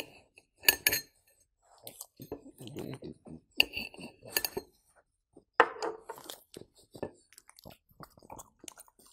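A spoon clinking and scraping against a ceramic bowl as soft cooked pumpkin is cut into pieces, with a few sharp clinks. Near the end, a dog's wet chewing and licking as it takes pumpkin from a fork.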